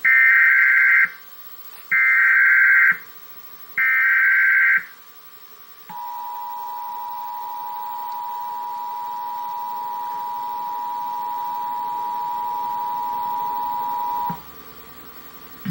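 Emergency Alert System monthly-test alert tones: three one-second bursts of the buzzy digital SAME header, then the steady two-tone attention signal held for about eight seconds, growing slightly louder before it cuts off.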